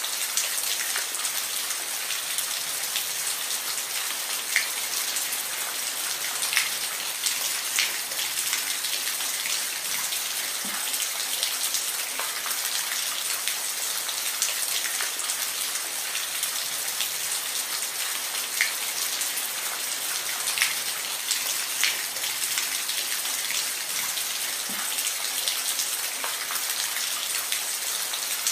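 Steady rain: a dense, even hiss with individual drops plinking and ticking here and there.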